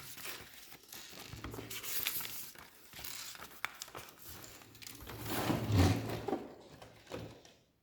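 Hands handling Lego pieces: irregular plastic rustling and crinkling with small clicks, a louder rustle with a low rumble about five to six seconds in.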